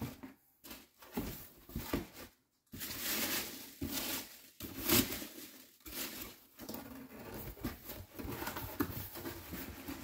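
Hand rummaging through polystyrene foam packing peanuts in a cardboard box: irregular rustling of the loose foam pieces, with a few short breaks.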